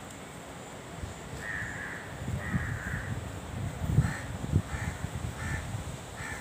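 A harsh call repeated six times, starting about a second and a half in. The first two calls are longer and the last four short and evenly spaced. Uneven low knocking rumble runs underneath.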